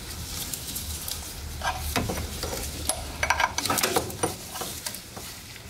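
Metal wrench clinking on a half-inch fuel line fitting as it is worked loose, a few sharp clicks about two, three and four seconds in over a faint hiss.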